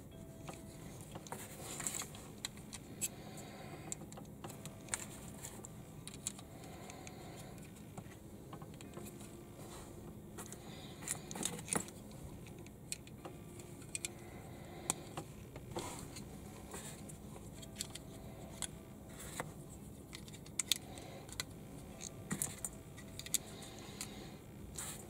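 Small plastic building bricks clicking and rattling as they are handled and pressed together, in many irregular sharp clicks over a faint steady hum.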